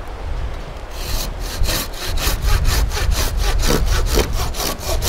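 Silky Sugoi 420 curved pull saw with extra-large teeth cutting through a green log, starting about a second in with fast, even strokes, about three to four a second.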